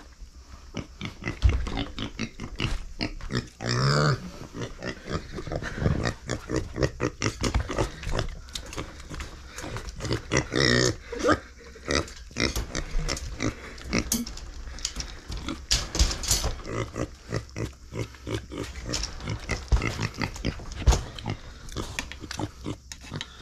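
Micro pig grunting in quick short bursts, with a few louder, higher squeals about four, eleven and sixteen seconds in.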